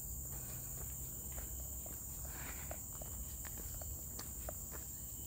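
Footsteps crunching along a dirt and gravel trail at a walking pace, over a constant high-pitched insect drone.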